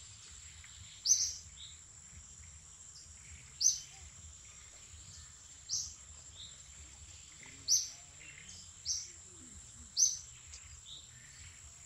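Forest ambience: a bird gives a short, sharp, high chirp six times, about every two seconds, over a steady high-pitched tone and a low background rumble.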